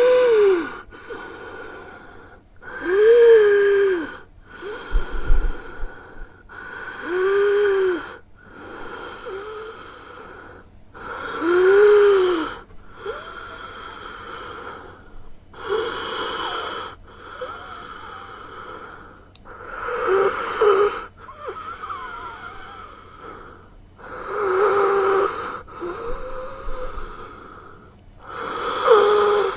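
Heavy human breathing with a wheeze: slow, deep breaths about every two seconds, many carrying a whistling tone that rises and then falls.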